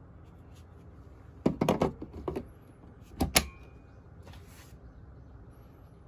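Makita BL1015 10.8 V slide-in lithium-ion battery being pushed onto a Makita DC10SA charger: a clatter of hard plastic knocks about a second and a half in, then a sharp click a little over three seconds in as the pack latches into place and charging starts.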